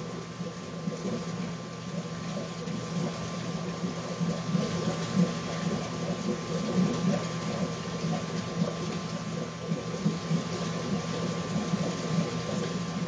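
Reef aquarium equipment running: a steady pump hum with the churn of circulating water.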